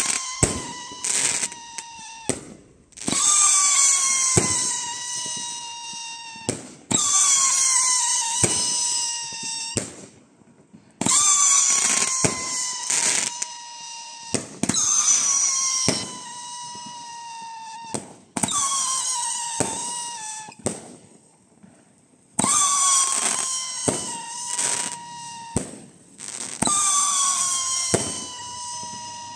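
Bright Star 'Send it! to the max' (BS8037) firework cake firing a series of whistling shots. About seven loud whistles each start sharply and sink a little in pitch as they fade over a few seconds, with sharp pops and bangs of launches and bursts in between.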